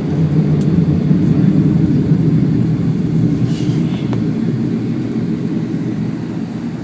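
Boeing 767-424ER jet engines at takeoff thrust, heard from inside another airliner's cabin as a loud, deep rumble. It is loudest a second or two in, then slowly fades as the jet moves away.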